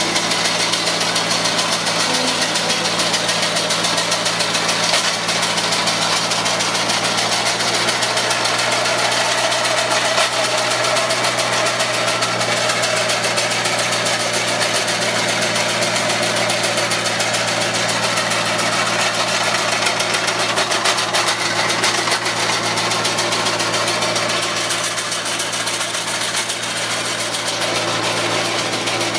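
Avant 635 compact loader's engine running steadily under hydraulic load, with the fast, even clatter of a Slanetrac hedge trimmer's reciprocating cutter bar cutting through hedge and branches.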